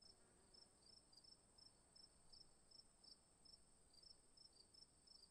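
Near silence: a very faint steady high-pitched whine with quick faint chirps repeating several times a second.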